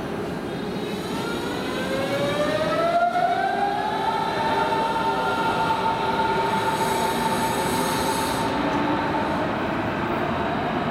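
Berlin S-Bahn class 481 electric train pulling away. Its traction drive whines, rising in pitch over the first few seconds as it accelerates and then holding a steady tone, over the steady running noise of the train.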